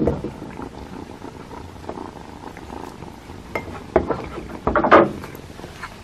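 A cat purring while eating from a dish close by, with a few sharp clicks and a short louder sound about five seconds in.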